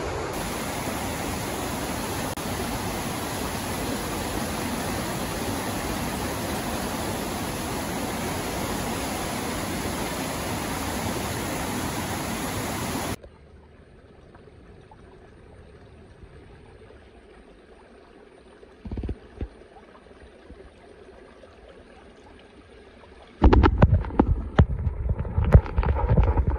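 Waterfall and wind rushing steadily for about half the time. After a sudden cut comes the faint trickle of a shallow stream over stones. Near the end a phone camera is plunged into the stream: loud, irregular, muffled underwater rushing and gurgling with knocks against the microphone.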